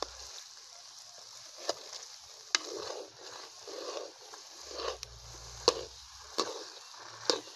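A steel slotted spatula stirring, pressing and scraping thick semolina halwa around a steel karahi to break up its lumps, with several sharp clinks where it strikes the pan. A steady hiss of the halwa frying in ghee runs underneath.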